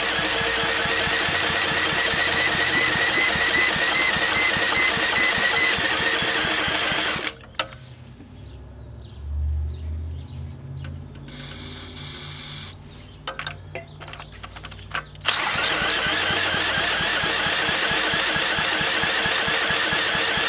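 Cordless drill cranking the single-cylinder engine of a 1950s Toro Sportlawn power reel mower, the engine catching and firing now and then as it is spun. It stops about seven seconds in, a short hiss comes a few seconds later, and the drill cranks the engine again about fifteen seconds in.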